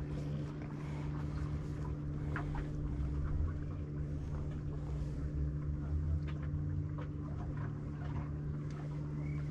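Steady low engine hum holding one pitch, over a wavering low rumble, with a few faint clicks.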